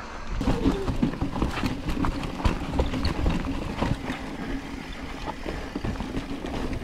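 Mountain bike being ridden downhill over rough ground: an irregular clatter of knocks and rattles from the tyres, chain and frame, over a steady low rumble.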